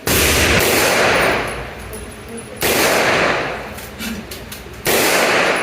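Three gunshots about two and a half seconds apart, each trailing off over a second or so.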